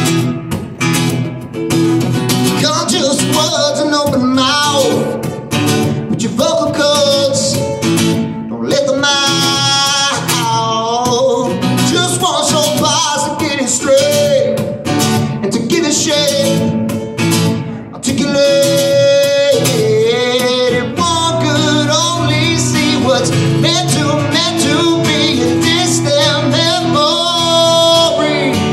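A man singing a song while strumming an acoustic guitar, a live solo performance; the guitar plays alone briefly before the voice comes in about two seconds in.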